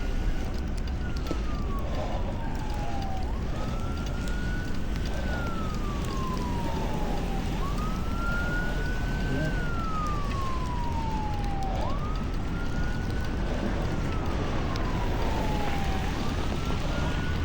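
Emergency vehicle siren wailing in slow sweeps, each rising quickly and then gliding down over a few seconds, repeating roughly every four seconds over a steady low rumble.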